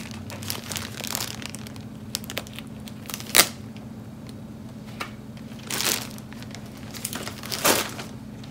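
Plastic bread bag crinkling as it is handled, in a series of separate rustles, the loudest about a third of the way in, with a steady low hum underneath.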